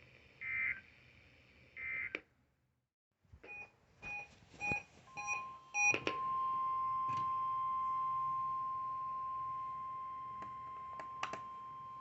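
NOAA Weather Radio data and alarm signals. First come three short warbling data bursts, the SAME end-of-message code that closes a broadcast. After a brief gap there is a run of short electronic beeps and clicks, and from about five seconds in the steady 1050 Hz warning alarm tone of a weather radio test sounds and holds.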